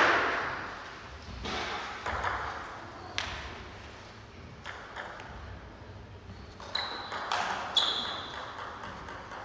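Table tennis ball clicking sharply on bats and table: scattered single bounces, then a quick run of clicks during a rally about seven seconds in, with a couple of short high squeaks. Applause dies away at the start.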